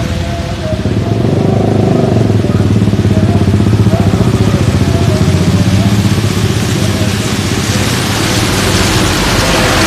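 Large bus engine running close by, getting louder about a second in and staying loud.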